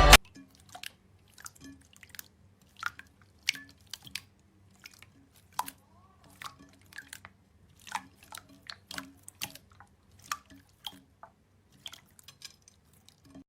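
Slime being squished and pressed by hand, giving small wet clicks and sticky pops at irregular intervals, a couple a second, over a faint low hum.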